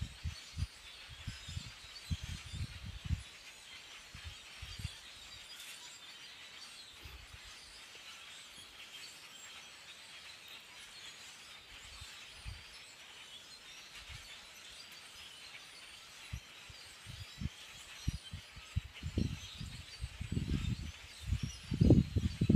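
A large flock of common grackles chattering together, many birds calling at once in a steady, dense chorus of squeaks and chucks. Wind gusts buffet the microphone early on and again near the end, where they are the loudest sound.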